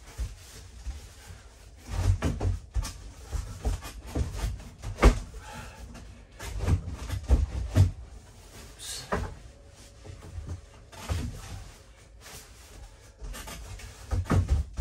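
Sliding slat-style bed and its foam cushions being pushed back into a bench: irregular knocks, low thuds and rubbing of wood and cushions, with the sharpest knock about five seconds in.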